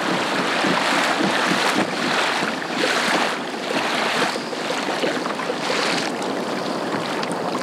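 Choppy sea water lapping and splashing against a kayak hull, in uneven swells about once a second, with wind on the microphone.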